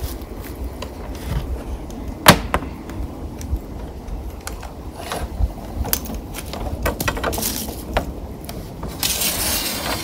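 Gear being handled on a folding camp table: a portable power station lifted off, then a charger brick and cables moved. Scattered clicks and knocks, with one loud knock a little over two seconds in and a short rustle near the end.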